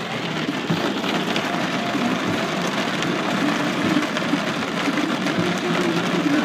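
Rain falling on a car's windshield and body, heard from inside the car as a steady dense patter, over the low steady sound of the car's engine.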